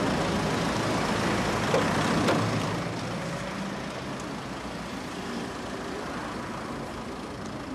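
A motor vehicle engine running, with street noise around it. The sound is louder for the first two and a half seconds, then settles a little lower and stays steady.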